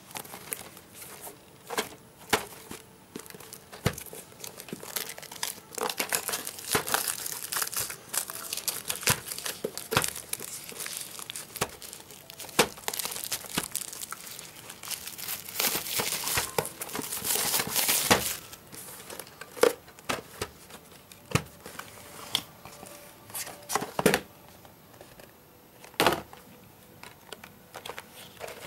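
Plastic shrink wrap being torn and crumpled off a DVD box set: a dense crinkling and crackling, heaviest in the middle, then sparser crackles and a few sharp clicks near the end.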